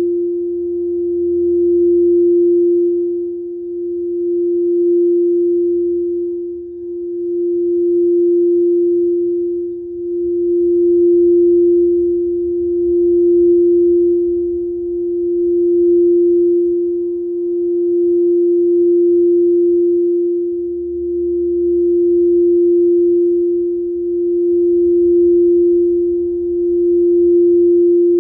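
Frosted quartz crystal singing bowl, green for the heart chakra, with a wooden mallet circling its rim to hold one steady, pure tone. The tone swells and fades about every two to three seconds as the mallet goes round.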